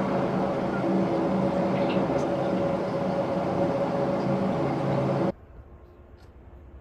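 A steady mechanical drone with several held tones stops abruptly about five seconds in. A quartz wall clock then ticks once in the quiet.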